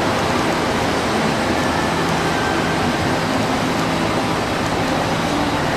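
Steady machinery noise: an even, unchanging rushing sound with a faint low hum.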